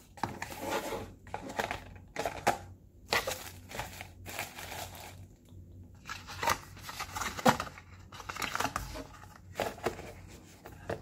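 Paper and cardboard phone packaging being handled: crinkling and rustling in short, irregular spells, with light knocks as the cardboard box is set down and closed.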